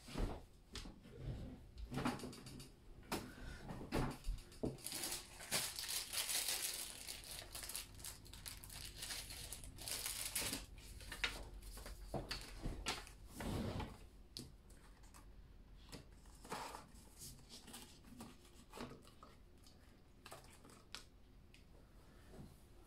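Paper bills and plastic binder envelopes being handled: rustling and crinkling with scattered taps and clicks, busiest in the first half and sparser after about fourteen seconds.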